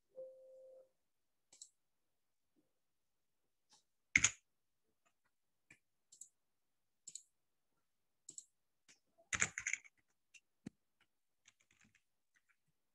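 A short Windows alert chime as an error box pops up on a failed file save, followed by scattered computer mouse and keyboard clicks, the loudest about four seconds in and a quick cluster near ten seconds.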